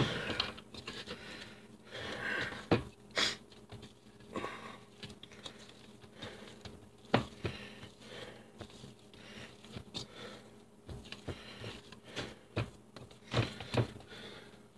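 Hands kneading sticky sourdough pretzel dough in a mixing bowl: irregular soft squishing and patting, with scattered light knocks of the hand against the bowl.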